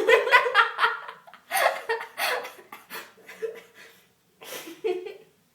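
Girls laughing in several bursts of rapid, pulsing giggles, the longest one at the start.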